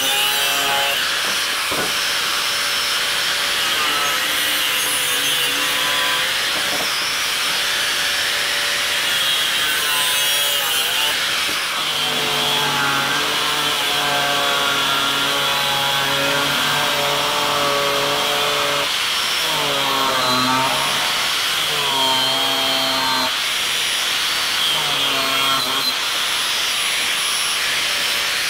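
Angle grinder with a cutting disc cutting through bicycle frame tubing, a steady shrill grinding. Its motor tone dips and recovers as the disc is pressed into the metal.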